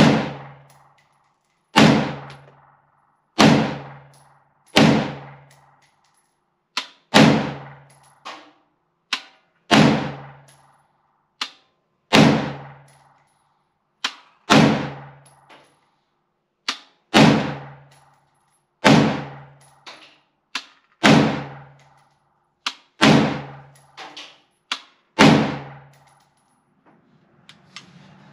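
Del-Ton Sport Lite AR-15 firing .223 rounds as a slow string of single shots, about one every one and a half to two and a half seconds, each crack ringing off the covered shooting bay's walls and roof. Fainter sharp cracks fall between some of the shots, and the string ends about three seconds before the close.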